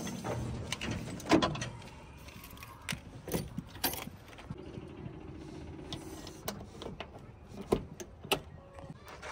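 Tractor engine running with a trolley, metal rattling and clanking over it. Irregular sharp knocks come throughout, the loudest about a second and a half in.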